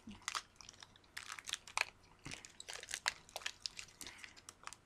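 Foil wrapper of a trading card pack crinkling and crackling in quick irregular crackles as hands fumble at tearing it open.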